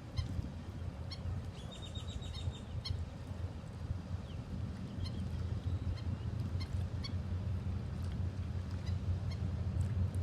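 Short, high bird calls, including a quick run of chirps about two seconds in and scattered single calls after it, over a steady low rumble.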